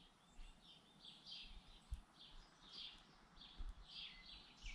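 Faint bird chirps repeating every second or so over quiet outdoor background, with a soft knock about two seconds in.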